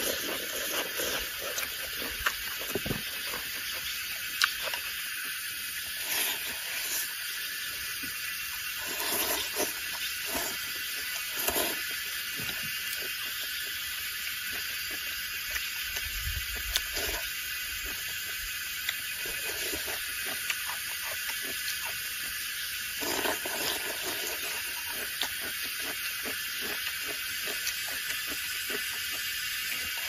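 A person eating from a bowl with chopsticks: scattered chewing and slurping with occasional small clicks, over a steady high hiss.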